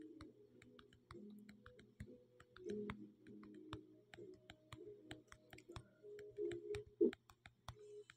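Faint irregular clicking, several clicks a second, with faint low steady tones underneath.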